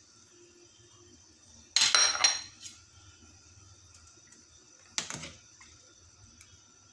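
Metal utensils clattering against an aluminium cooking pot: a quick run of ringing clinks about two seconds in, then a single sharp knock about five seconds in, as a metal ladle stirs the pot.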